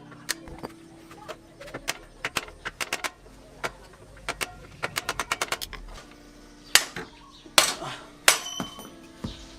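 Hand tools working on metal motorcycle parts: a run of quick, irregular metallic clicks, then three sharper metal knocks with a short ring.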